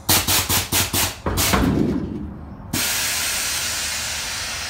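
Air-ride suspension on a Chevy C10 being worked from its AVS valve switch box: a quick run of about six short bursts of air, a longer burst, then a sudden steady hiss of air that fades slowly, as the air bags fill and the truck rises.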